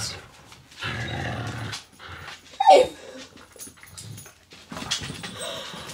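Puppies play-fighting on the floor: a scuffle about a second in, then a short, high yelp that falls in pitch about two and a half seconds in, the loudest sound, followed by quieter scuffling.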